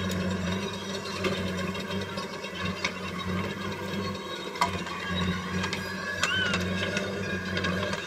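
JCB 3DX backhoe loader's diesel engine running steadily while the backhoe arm works, with occasional short knocks from the arm and bucket.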